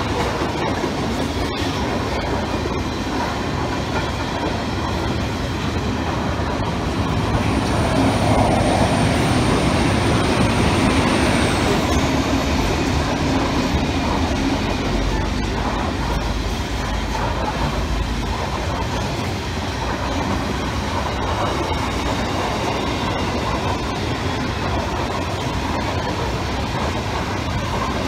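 A long freight train of empty flat wagons rolling past with a steady rumble and rattle of wheels on rail. A thin, high wheel squeal sounds for several seconds about a quarter of the way in.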